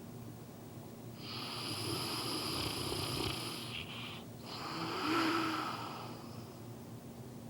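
English Mastiff snoring in its sleep: two long, noisy snoring breaths, the first starting about a second in and the second, louder one following after a short pause.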